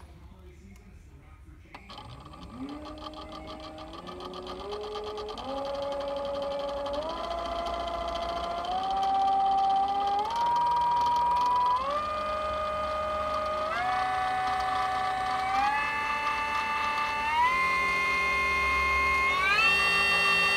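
Denzel 7500 W brushless motor spinning unloaded under a Kelly KLS7230 sine-wave controller, its whine starting about two seconds in and climbing in about ten small steps, one every couple of seconds, as the throttle is opened a notch at a time. The smooth stepped rise shows the controller's many throttle steps.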